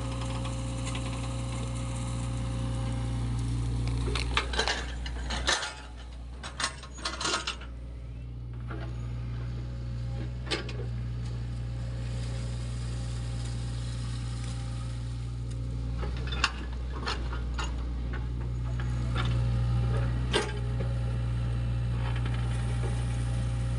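SANY mini excavator's diesel engine running steadily while the bucket digs wet mud, with sharp metallic clanks from the bucket and arm: a cluster of them about five to seven seconds in, then single ones at intervals.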